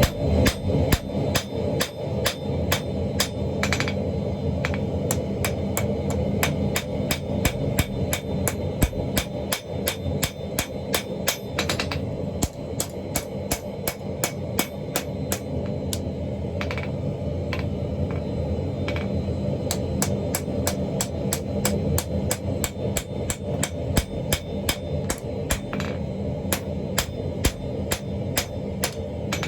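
Hammer blows on a hot chain Damascus billet at the anvil, a steady run of sharp strikes about two to three a second with a few short pauses, over a steady low hum.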